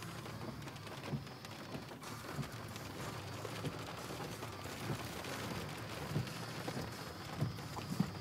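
Rain falling on a car, heard from inside the cabin: a steady hiss with scattered light irregular knocks.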